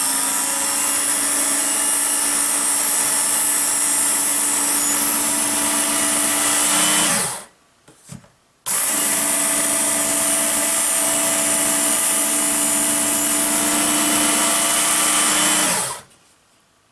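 Work Sharp electric belt knife sharpener, fitted with a 6,000-grit belt, running twice for about seven seconds each, with a short stop about seven seconds in. Each run starts abruptly and winds down with a falling hum as the motor is switched off.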